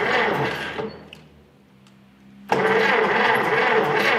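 Starter cranking the 1964 Minneapolis Moline M602's gasoline engine, which turns over but does not fire; the owner thinks this is probably a fuel delivery problem. The cranking stops about a second in and starts again about two and a half seconds in.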